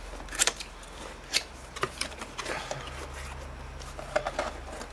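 Cardboard retail box being opened by hand: flaps sliding and scraping, with several short sharp cardboard clicks and taps, over a steady low hum.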